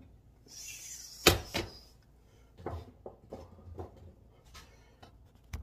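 Kitchen cupboard being opened: a sharp knock just over a second in, then several softer knocks and taps as spice jars are moved about.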